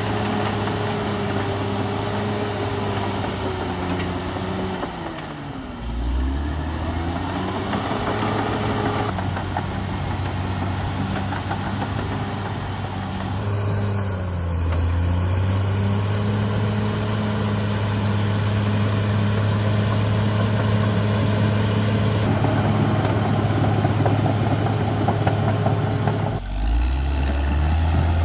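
CAT D6R XL bulldozer's diesel engine running hard, its pitch sagging and recovering three times.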